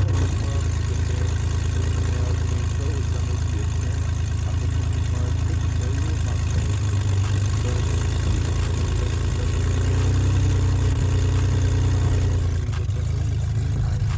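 BMW engine idling steadily just after being started on freshly fitted ignition coils, which replace stock coils that had given it a rough idle. The idle rises slightly about ten seconds in and settles back shortly before the end.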